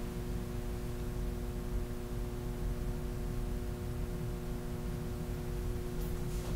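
Room tone with a steady electrical hum made of several constant tones over a low background noise.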